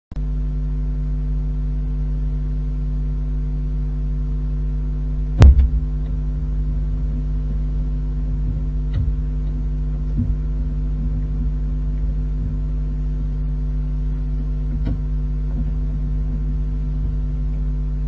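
Steady electrical mains hum on the nest-box webcam's audio feed. One loud thump comes about five seconds in, and a few faint knocks follow later.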